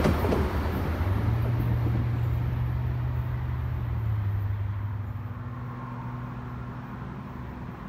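Rumble of a receding Amtrak Cascades train fading away, leaving a low steady engine hum that drops slightly in pitch about halfway through and grows quieter.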